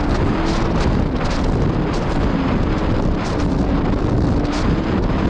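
Jet ski running on the water with heavy wind buffeting the microphone: a steady loud rush, with a faint engine drone coming and going underneath.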